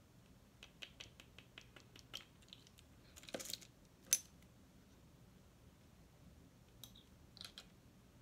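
Small glass bottles and caps being handled: a run of light clicks and taps, a short rustle a little past three seconds in, and one sharp clink about four seconds in, then a few more faint clicks near the end.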